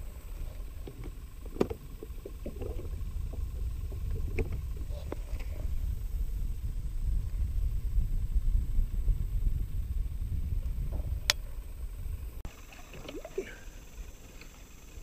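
Fishing kayak on the water: a low rumble that builds and eases through the middle, with scattered clicks and knocks of gear on the hull. One sharp click comes about a second and a half in and another about eleven seconds in.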